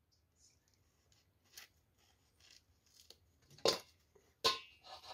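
Kitchen knife scraping and cutting into a roasted yellow yam: a few short scraping strokes, faint at first, the strongest about three and a half and four and a half seconds in.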